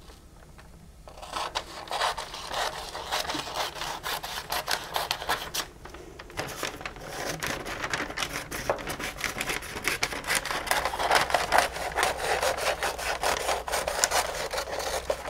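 Butcher paper being cut to size: a long run of quick, scratchy cutting and rustling strokes through the stiff paper. It starts about a second in and breaks off briefly near the middle.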